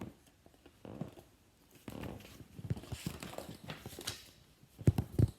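Handling of a picture book as its page is turned: paper rustling and scattered soft knocks, with two louder thumps a little before the end.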